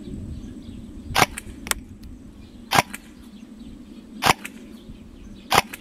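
G&D DTW electric airsoft rifle firing single shots: four sharp snaps about one and a half seconds apart, with a fainter click shortly after the first.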